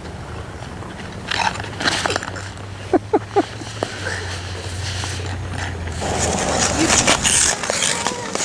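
Ice skate blades scraping over rough outdoor ice, with a few short, high vocal sounds from a small child about three seconds in, around the moment she falls. A steady hiss of skating and wind takes over near the end.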